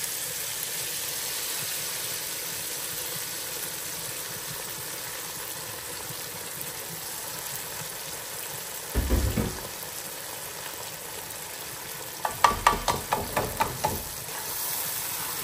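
Rice being fried and stirred in hot oil in a cooking pot, with a steady sizzle. There is a single heavy thump about nine seconds in, and a quick run of about ten knocks between about twelve and fourteen seconds in.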